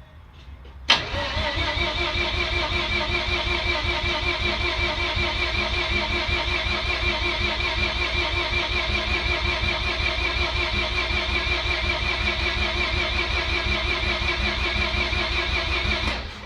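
Starter motor cranking a Mazda RX-8's Renesis rotary engine over without it firing, a steady even pulsing whine for about fifteen seconds, to prime the freshly installed turbo and oil system with oil. It starts suddenly about a second in and stops just before the end.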